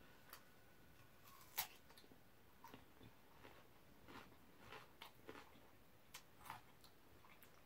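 Near silence with faint, scattered mouth clicks and chewing sounds from a person eating, one click a little louder about one and a half seconds in.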